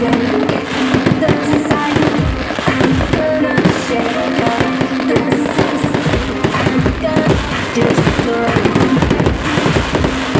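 Fireworks going off in rapid, continuous bangs and crackling, over loud music.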